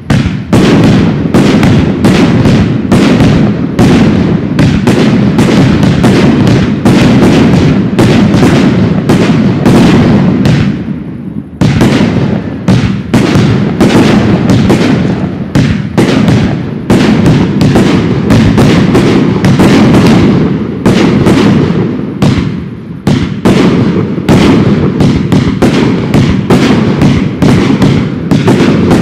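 Professional aerial firework shells bursting in a dense, very loud barrage, several sharp bangs a second. The barrage eases briefly about eleven seconds in, then picks up again.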